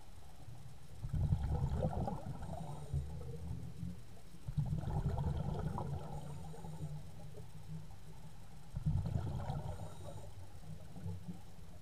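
A scuba diver's exhaled bubbles rumbling and bubbling up from the regulator, heard through the underwater camera housing, three breaths about four seconds apart.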